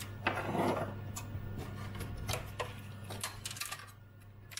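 Plastic front panel of a Commodore 128D case being worked loose and lifted away: a scrape of plastic about half a second in, then a run of light clicks and taps.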